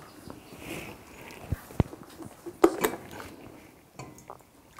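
A few light clicks and knocks of kitchenware being handled: an electric kettle lifted and brought to a steel cooking pot, with a louder double knock about three seconds in.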